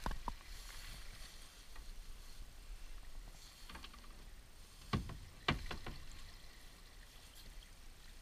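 Handling noise on a small aluminium boat as an underwater acoustic recorder is lowered over the side on a rope: a faint steady hiss of water, a couple of light knocks at the start, and a few sharp knocks about five seconds in, the loudest two about half a second apart.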